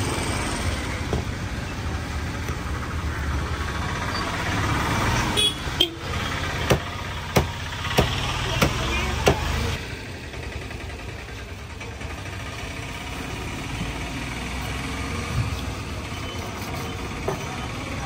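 A motor vehicle's engine running steadily, its low rumble dropping away about ten seconds in. Around the middle comes a run of about seven sharp knocks, a little over half a second apart.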